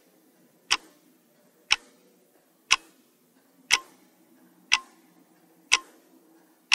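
Clock-tick sound effect for a quiz countdown timer: one short, sharp tick about once a second.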